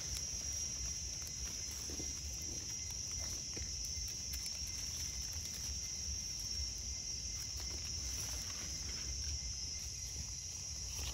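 A steady, high-pitched chorus of forest insects droning without a break, with faint rustles and clicks of hands working in dry leaf litter.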